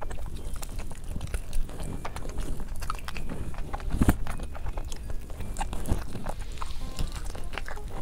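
Close-miked wet chewing and lip smacking of a mouthful of saucy food, with many irregular sticky clicks and squelches.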